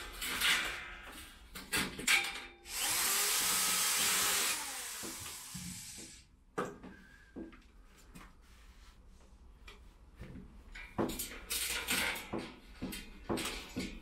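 Corded electric drill boring into the balcony wall in one run of about four seconds, loud at first and then fading before it cuts off. Several short knocks and clicks follow near the end.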